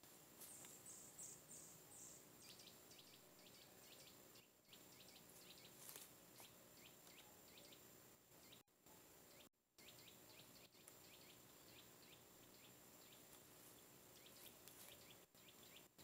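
Faint chirping of small birds in woodland: a quick run of about four high notes near the start, then a long string of short, quick chirps. The sound drops out briefly twice around the middle.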